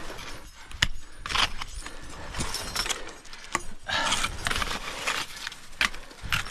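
Metal climbing hardware (carabiners and gear on a harness) clinking and jangling, with several sharp metallic clicks and short scraping, rustling bursts.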